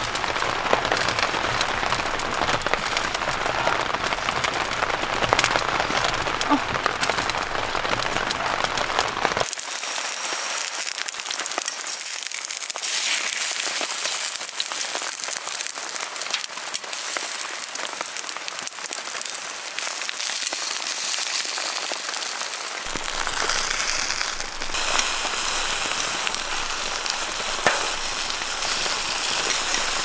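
Steady rain pattering on a tent, a dense hiss of many small drop ticks. About ten seconds in the deep part of the sound drops out, leaving a thinner, brighter patter, and it returns about three-quarters of the way through.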